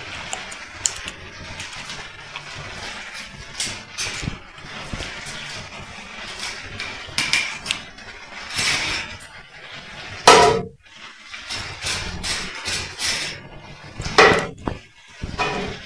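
A spoon scraping and tapping a metal mesh strainer as blended chile salsa is worked through it into a plastic bowl, with wet sloshing of the sauce and many small clicks. Several louder knocks stand out, the loudest about ten seconds in and again near fourteen seconds.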